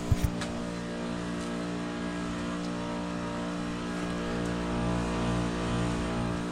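2011 American Standard Heritage 15 heat pump outdoor unit running in a defrost cycle: a steady compressor hum with a hiss over it and a couple of short knocks right at the start.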